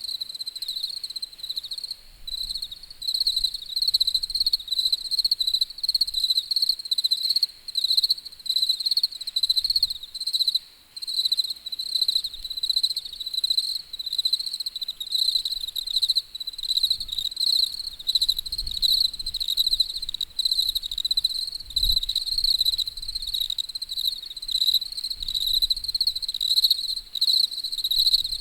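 Crickets chirping continuously in a high, rapidly pulsing trill.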